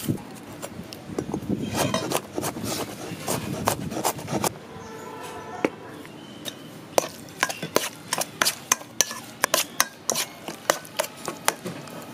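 Kitchen knife chopping garlic cloves on a wooden cutting board: a run of knocks, blurred together in the first half, then separate sharp strikes about three or four a second.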